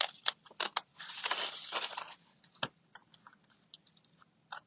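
Rustling and crinkling as small paper craft pieces are picked up and handled, with many sharp clicks and a denser crinkle about a second in; one louder click a little past halfway.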